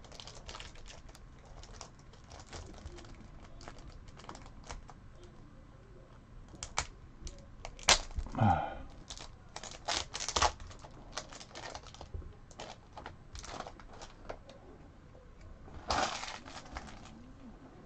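Plastic shrink-wrap crinkling and tearing as it is peeled off a sealed set of hockey trading cards: scattered light clicks and crackles, louder bursts about eight and ten seconds in and again near sixteen seconds. About eight seconds in there is a short squeak that drops in pitch.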